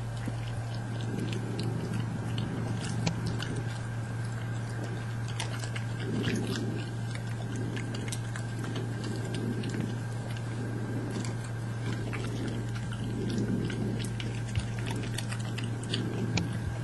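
Badgers chewing and crunching nuts: a scatter of sharp crackling clicks over soft chewing pulses about once a second. A steady low hum runs underneath.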